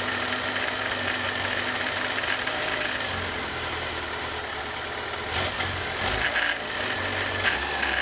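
Kawasaki ZR-7S's air-cooled inline-four engine (Zephyr 750 type) idling steadily, with a light katakata rattle like a loose part from low on the engine. The rattle comes from the generator, where one of its three mounting bolts has lost its head.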